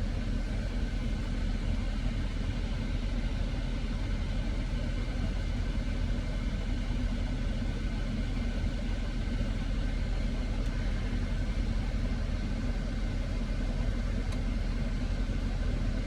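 Car engine idling: a steady low rumble with a faint hum.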